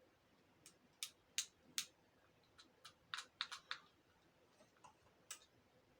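Faint, sharp clicks and pops from fidget toys being pressed and handled, about a dozen at irregular intervals, several bunched together in the middle.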